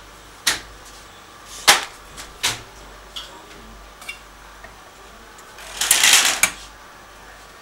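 A few sharp mechanical clicks and knocks, then a short rattling clatter about six seconds in, from hands working the front of an automatic wire cutting and stripping machine.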